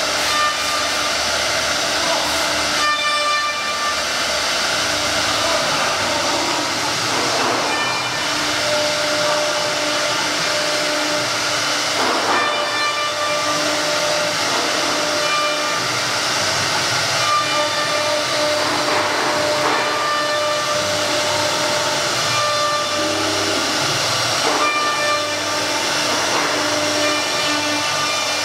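CNC router's high-speed spindle whining steadily as its bit cuts into an MDF sheet, with a continuous hiss of cutting underneath; the whine's pitch shifts slightly now and then as the load changes.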